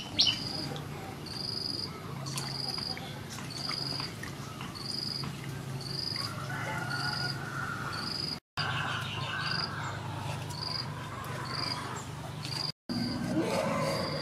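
A small animal's short, high chirp repeating evenly about once a second, over a low steady hum.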